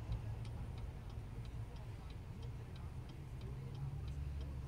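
Car's turn-signal indicator clicking steadily, about three ticks a second, heard inside the cabin over the low hum of the idling engine.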